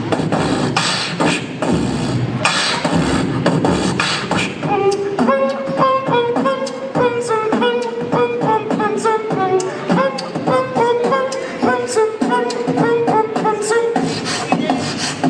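Beatboxing: a fast run of vocal drum sounds, then from about five seconds in a stepping vocal melody carried over a steady clicking beat. The dense drum sounds come back near the end.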